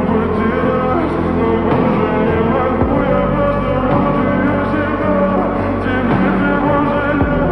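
A song playing: a singer over a full band backing, at a steady level throughout.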